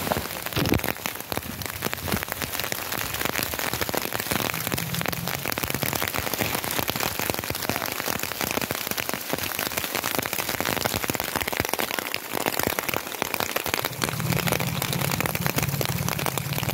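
Heavy rain falling, a dense ticking of drops striking close by. A rally car's engine hums underneath near the end as the car comes through.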